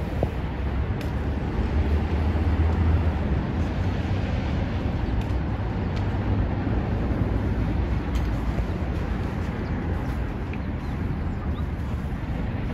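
Steady low rumbling outdoor noise, strongest in the bass, with a few faint ticks.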